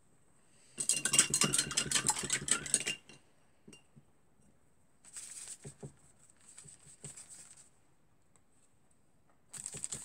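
Paintbrush clinking and rattling in a glass jar of rinse water: a busy burst of rapid clicks for about two seconds, then two softer swishing stretches a few seconds later.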